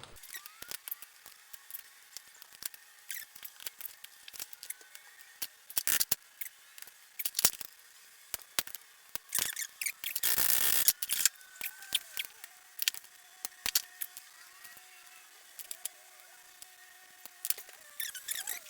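Metal carburettor parts and hand tools clicking, tapping and clinking as a motorcycle carburettor bank is worked apart on a bench, with a scraping rasp lasting about a second partway through.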